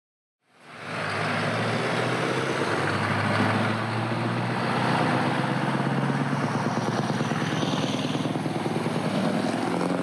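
Diesel engine of a large three-axle tipper truck running as the truck drives in; a low, steady engine note.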